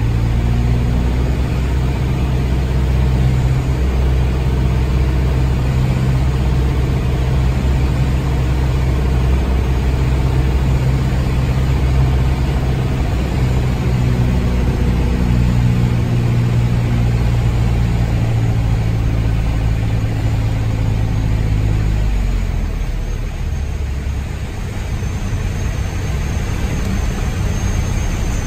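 Light aircraft's piston engine and propeller running steadily on final approach, heard from inside the cockpit. About 22 seconds in the power comes off for the landing and the engine note drops lower.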